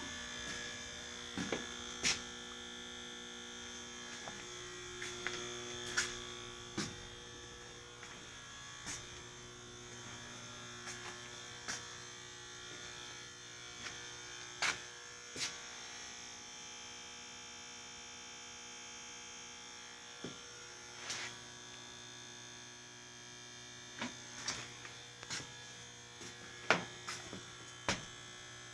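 A steady electrical hum and buzz in a small room, with scattered sharp clicks and knocks throughout.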